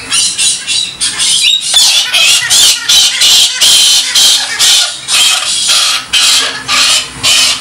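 Galah (rose-breasted cockatoo) screeching: a rapid, loud run of harsh squawks, about two or three a second, as the excited bird flaps and hangs upside down in display.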